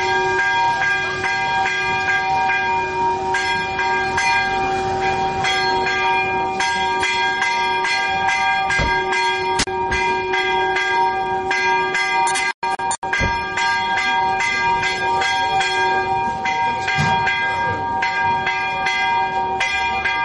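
Church bells ringing in a rapid, continuous peal, several bells of different pitches struck over and over, for the feast-day vespers. The sound cuts out for a moment about twelve seconds in.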